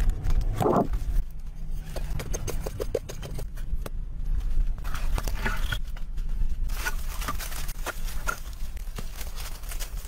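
Irregular wooden knocks and thuds with scraping as logs are lifted, carried and set down, over a steady low rumble.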